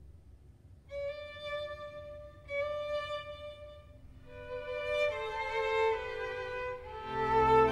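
Slow instrumental background music: a melody of long held notes, growing fuller as a lower part comes in near the end.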